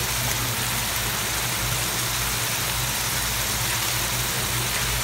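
Garlic, onions and ground meat sizzling steadily in hot oil in a pan while being sautéed, over a constant low hum.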